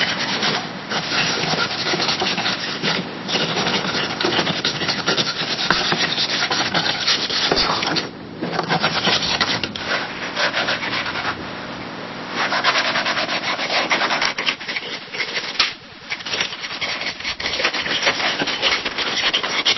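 Pencil writing on a wooden desk: the lead scratches across the paper in quick, dense strokes, with short pauses about 8 and 16 seconds in.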